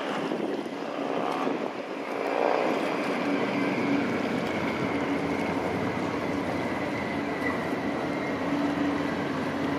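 An engine running steadily: a low hum over a broad rushing noise, growing a little louder after about two seconds.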